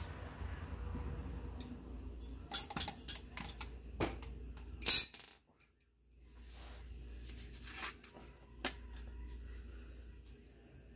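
Metal hand tools clinking and clattering as they are handled, in a quick run of clinks with the loudest clank about five seconds in, followed by a few lighter clicks.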